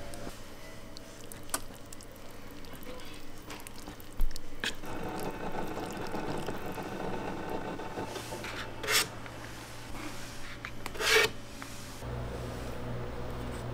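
Disposable wooden chopsticks stirring instant ramen noodles in a paper bowl, rubbing and scraping against the bowl, with a sharp click about four seconds in and two louder scrapes in the second half. A steady low hum runs underneath.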